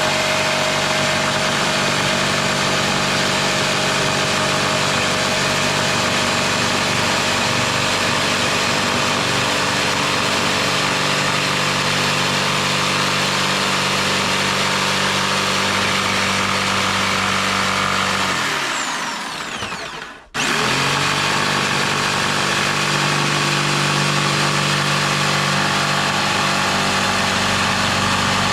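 Electric power tool running steadily at full speed. About two-thirds of the way in it is released and its motor spins down with a falling whine, stopping for a moment before it is switched straight back on and runs steadily again.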